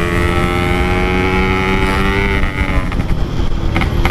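Yamaha RX-King 135cc two-stroke single running at steady high revs through a Packing Power exhaust while riding. The throttle closes about two and a half seconds in and the engine note falls away.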